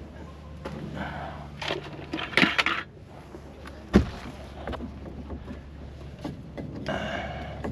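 Rustling and scraping in chicken nest boxes as eggs are searched for and gathered, with one sharp knock about four seconds in and another rustling burst near the end.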